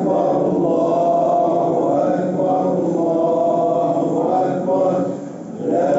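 Voices chanting in long, drawn-out phrases, with a short break about five seconds in.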